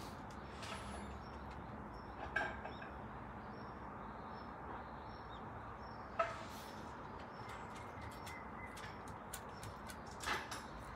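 Quiet outdoor background with a small bird chirping faintly: short high chirps repeating at an even pace through the first half. A few brief louder sounds come about two, six and ten seconds in.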